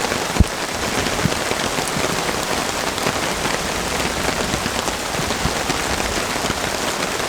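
Steady rain falling hard, a dense hiss of drops with scattered individual drop ticks. There is a single sharp thump about half a second in.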